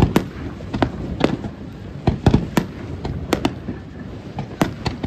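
Aerial fireworks bursting in a quick, irregular string of sharp bangs, about eleven in five seconds, over a low rumble.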